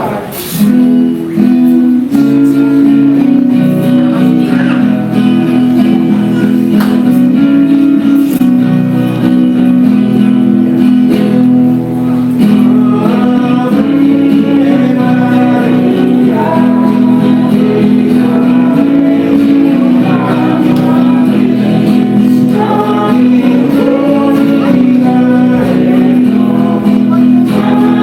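Voices singing a closing hymn together over sustained instrumental chords, right after the Mass's dismissal.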